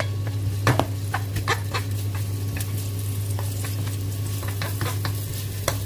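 Minced garlic sizzling in hot oil in a nonstick wok while a wooden spoon stirs and scrapes it, with scattered sharp crackles throughout. A steady low hum runs underneath.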